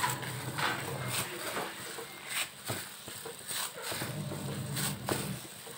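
A plastic-gloved hand punching down and kneading risen yeast dough in a plastic bowl: irregular soft slaps and squashes as the air is knocked out of the dough after proofing.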